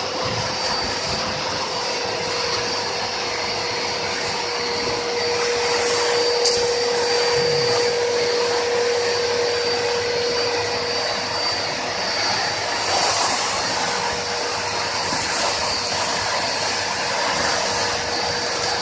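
Two-motor industrial vacuum cleaner (2.2 kW, built with household vacuum-cleaner motors) running steadily: an even rushing roar of air with a steady hum, the hum stronger for several seconds in the middle.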